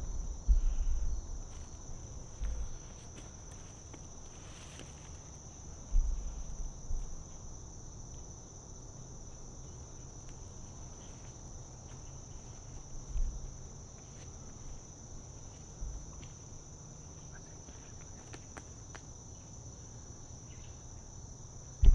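Steady, unbroken high-pitched insect chorus, like crickets, droning through the woods, with a few low thumps scattered across it.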